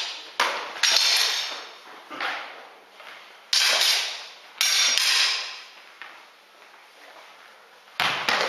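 Sword-and-dagger sparring weapons clashing and striking in a series of sharp hits, each fading out in a long echo. There are several in quick succession, then a lull, then another hit near the end.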